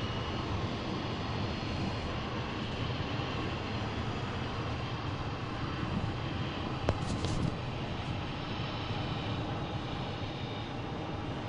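2007 Subaru Impreza 2.5i running with a steady mechanical drone and a faint high-pitched whine that the owner puts down to the manual transmission, cause unknown. There is a brief click about seven seconds in.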